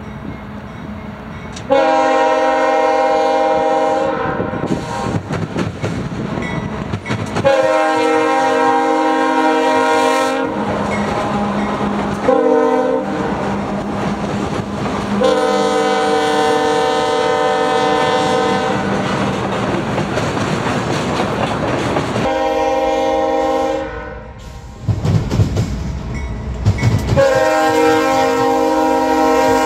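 A CSX diesel locomotive's air horn, a chord of several tones, sounds long, long, short, long, the pattern of the grade-crossing signal, then another long blast near the end. Between the blasts the train's wheels clatter over the rails, with a heavy rumble shortly before the last blast.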